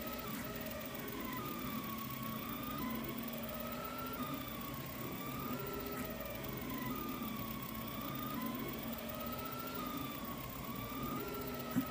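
Delta 3D printer's stepper motors whining as the print head moves through a layer, the pitch rising and falling in repeated sweeps about every one to two seconds over a steady low hum. A sharp click comes near the end.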